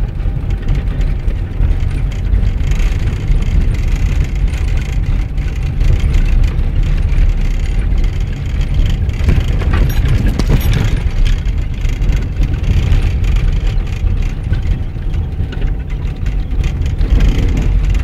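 Vehicle engine and tyre noise heard from inside the cab while driving on a snow-covered road: a steady low rumble, with a few knocks from bumps about halfway through.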